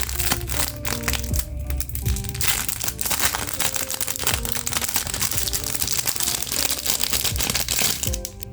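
Plastic packaging crinkling and crackling as it is handled, with scattered crackles at first and then dense continuous crinkling from about two and a half seconds in, over background music.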